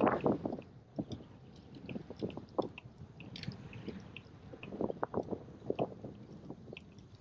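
Wind buffeting the microphone in irregular crackling gusts, from a strong headwind while cycling.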